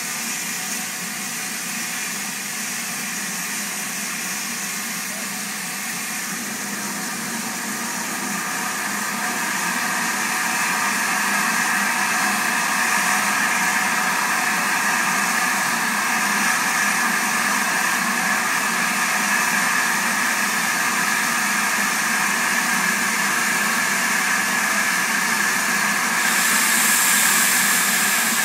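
Standing steam locomotive hissing steam steadily. The hiss grows louder over a few seconds about a third of the way in, and a sharper, higher hiss joins near the end.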